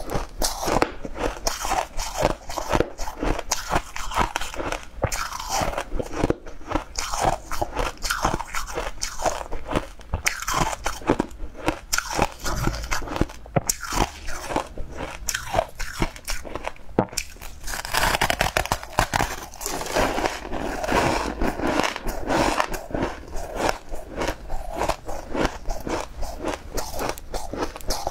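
Close-miked biting and chewing of frosty ice blocks: a continuous stream of crisp, granular crunches, densest about two-thirds of the way through.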